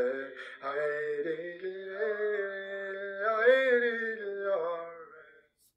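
A single unaccompanied voice singing a slow song in long held notes, fading out near the end.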